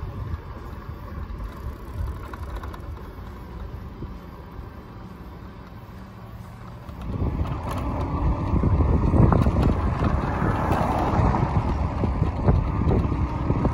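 Wind buffeting the microphone of a camera carried on a moving electric bike, a low rumbling rush that grows much louder about seven seconds in.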